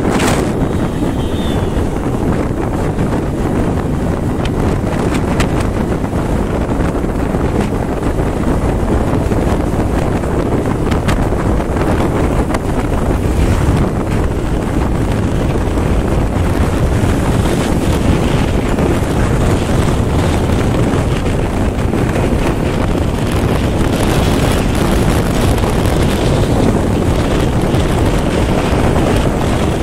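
Steady wind rush on the microphone of a motorcycle riding at highway speed, with the bike's engine and road noise beneath it.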